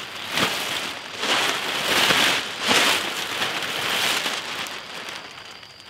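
Large black plastic 55-gallon bin liner rustling and crinkling as it is shaken out and spread by hand, in several swells of rustling that die away near the end.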